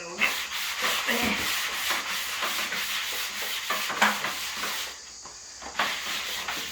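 Sandpaper rubbing across a wooden tabletop in quick repeated strokes, sanding back the timber after its old shellac and stain-varnish finish has been stripped. The sanding pauses briefly about five seconds in, then resumes.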